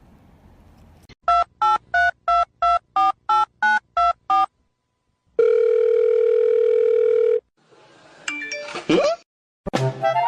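Telephone keypad dialling: ten quick touch-tone beeps, then a steady ringback tone lasting about two seconds as the call rings. A short gliding sound and the start of music follow near the end.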